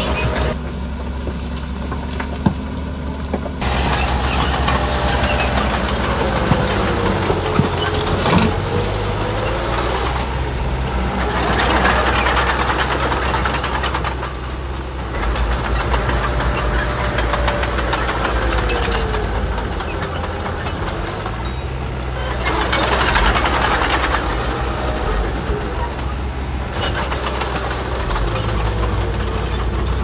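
Heavy diesel earthmoving machinery running steadily, with a deep engine drone that grows louder twice, as under load, and some whining sounds that slide up and down in pitch.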